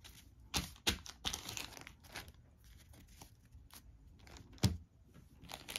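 Thin plastic packaging crinkling in irregular bursts as a stack of game cards is handled and taken out, with one sharp tap about two-thirds of the way through.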